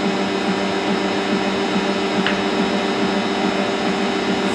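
Countertop electric mixer running steadily, its motor humming as the beater works melted butter, sugar and egg in a stainless-steel bowl.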